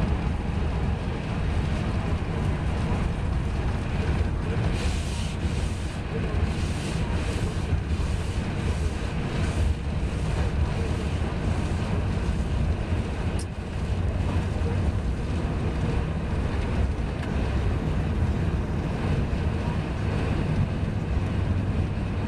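Steady road and wind noise inside a car driving on a snow-covered highway in blowing snow. About five seconds in comes a run of brief hissing swells, roughly one to two a second, for about six seconds.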